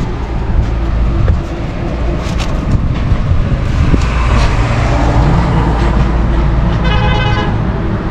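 A motor vehicle's engine running with a steady low hum, and a short horn toot about seven seconds in.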